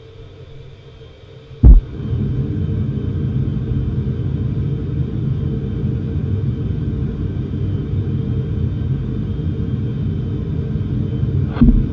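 Airplane-cabin engine rumble heard through Nothing Ear (2) earbuds. It is a steady low drone that jumps from a faint hum to loud after a sharp thump about two seconds in, then falls back to the faint hum after a second thump near the end. The loud stretch is the cabin noise with the earbuds' active noise cancellation off, and the faint stretches are with it on.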